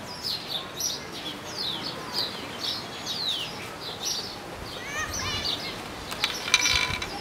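Birds chirping outdoors: a quick, continuous run of short, high, falling chirps, with a louder, harsher call near the end.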